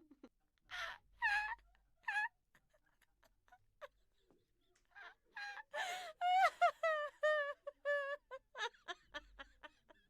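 A person's breathless laugh: a few separate high-pitched squeals, then a pause, then from about five seconds in a fast run of squeaky, wheezing laugh pulses, about four a second, with gasps for air between them.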